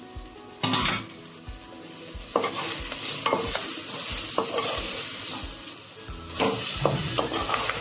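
Besan-stuffed okra and baby onions frying in hot mustard oil, sizzling steadily. The sizzle jumps in loudness about a second in. A wooden spatula stirs through the pan, with short knocks and scrapes against the pan every second or so.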